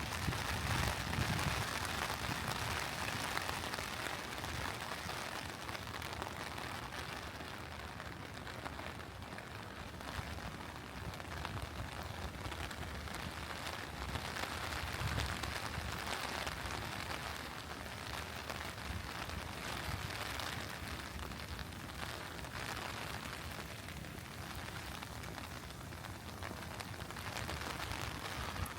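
Steady rain falling, an even hiss throughout, with a brief low rumble of distant thunder near the start and again about halfway through.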